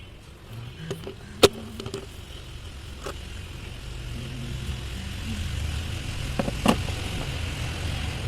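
A motor vehicle's low engine rumble that swells partway through, with two sharp metallic knocks, the first of them the loudest.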